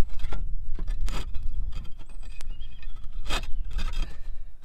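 Hands pressing and working a flexible self-adhesive lead-free flashing sheet down over clay roof tiles around a solar panel roof hook, giving a few short rustling, scraping strokes. The strongest comes about three and a half seconds in, over a steady low rumble.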